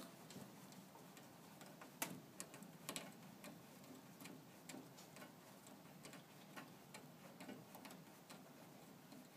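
Faint, irregular clicks and ticks of a pressure-mounted metal pet gate being handled, its plastic spindle bumper twisted tight against a door frame. The sharpest click comes about two seconds in, with a few more close together just after.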